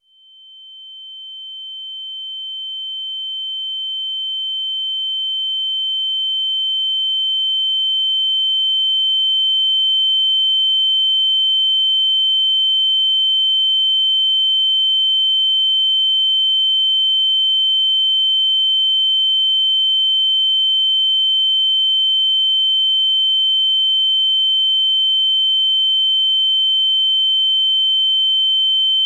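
A steady, high-pitched electronic sine-wave beep tone. It fades in from silence over about the first ten seconds, then holds at a constant pitch and level.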